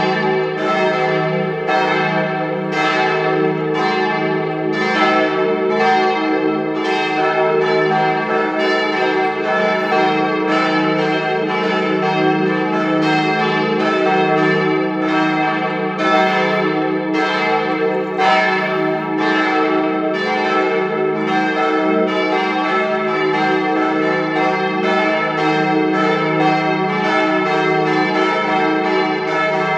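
Partial peal of a church's bells: several swinging bells strike in an overlapping, irregular pattern at about two strikes a second over a steady, sustained hum.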